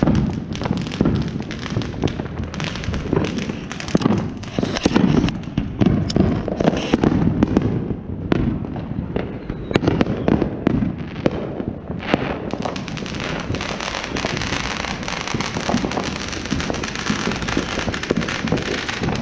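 Fireworks going off in quick succession: many sharp pops and bangs, turning into a steady dense hiss from about twelve seconds in.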